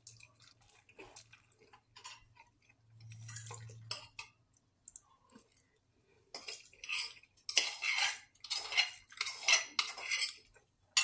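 Metal utensil scraping and clinking against a stainless steel pot as food is dug out: light clicks at first, then a run of about eight loud scrapes in the second half.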